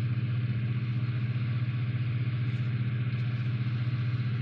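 Steady low hum with a buzzing edge, even in pitch and level, from a running machine or electrical equipment.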